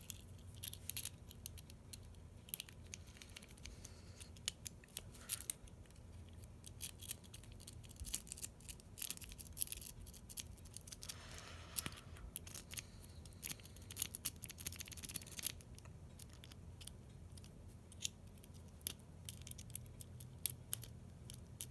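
A lock-picking rake being jiggled back and forth in the keyway of a Master Lock 141D pin-tumbler padlock under tension from a tension wrench. It makes irregular, quick, light metallic clicks and scrapes as the rake passes over the pins.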